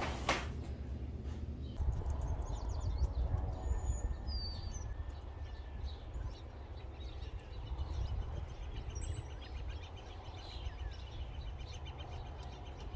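Birds chirping, with short high calls here and there and a fast ticking trill in the second half, over a steady low rumble.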